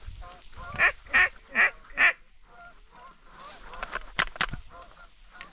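Goose honking: four loud honks in quick succession about a second in, then fainter calls. Two sharp clicks follow a little after four seconds.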